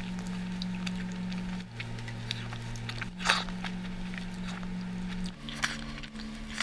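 Close-miked eating by hand: wet squishing of dal and rice worked with the fingers, crisp bites of fried stuffed vegetables and chewing, in short crackly clicks, the loudest about three seconds in. A low steady hum lies underneath and shifts pitch three times.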